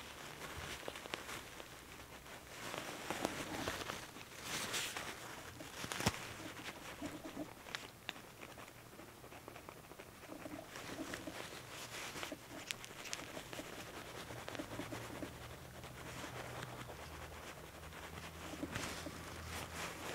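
Tissue paper rustling and rubbing against a two-week-old kitten as its belly is stroked to make it pee after feeding, with the kitten's small cries now and then.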